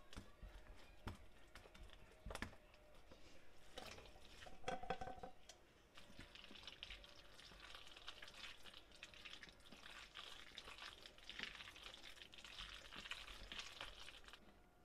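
Faint kitchen sounds of a silicone spatula stirring cheese sauce in a ceramic frying pan, with a few light taps against the pan. About four seconds in, a louder clatter comes as cooked elbow macaroni is tipped from a pot into the sauce, followed by a steady crackly stirring as the pasta is mixed through.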